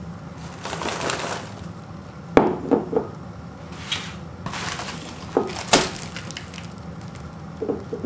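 Paper microwave-popcorn bag rustling and crinkling in a few bursts as it is handled, with sharp knocks of a bowl and box against a wooden floor: three quick ones a couple of seconds in, two more a little after the middle, and a pair near the end.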